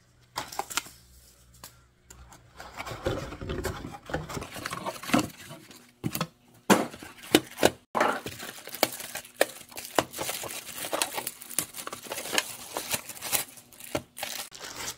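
Unboxing handling noise: a clear plastic bag crinkling around a light panel, and cardboard and plastic parts lifted out of the box and set down, with irregular sharp knocks.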